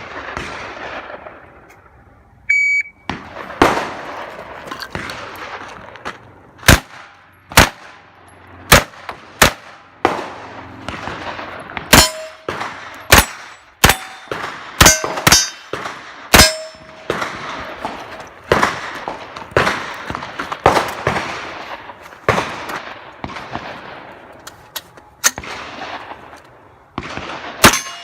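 A shot timer beeps about two and a half seconds in. Then a pistol-caliber carbine fires over twenty shots in quick strings with short pauses between them, each shot echoing. Several shots are followed by the brief ring of a steel target being hit.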